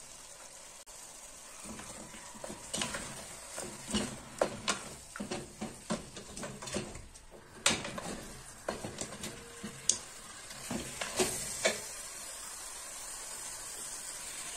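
Chicken pieces with tomato and spices sizzling in a stainless steel pot, with a wooden spoon knocking and scraping against the pot as they are stirred and turned. The clatter fills the middle stretch, with a few sharp knocks, and quiet sizzling is left at the start and end.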